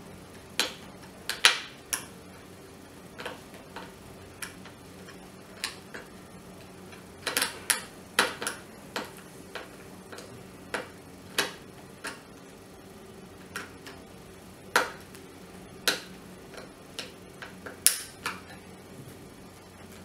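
Irregular sharp clicks and taps of a screwdriver turning screws into the plastic housing of a dry iron, with the hard plastic shell knocking as it is handled, one or two clicks a second with uneven pauses.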